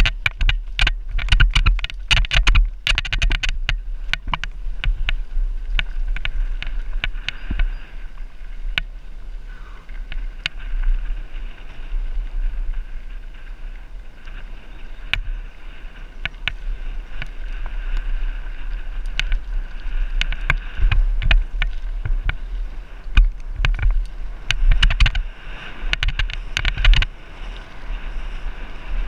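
Downhill mountain bike running over dirt and gravel, with wind rumbling on the microphone and the bike rattling and clicking sharply over bumps. The clatter is densest at the start and again near the end.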